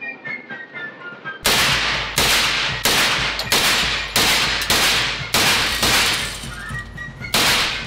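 A run of about nine gunshots fired one at a time, roughly two-thirds of a second apart, each with a short ringing tail. The shots start about a second and a half in, with a longer pause before the last.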